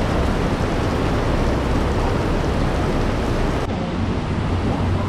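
Heavy rain pouring onto a street pavement: a loud, steady hiss that turns slightly duller at about three and a half seconds.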